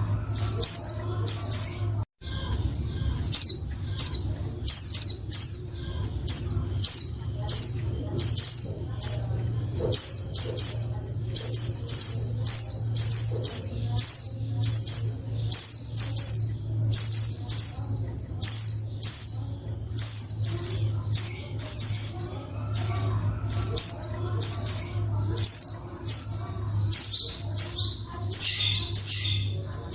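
Female pleci (white-eye) calling noisily: a continuous run of short, high, down-slurred chirps in quick clusters of two to four, over a faint steady low hum. The sound briefly cuts out about two seconds in.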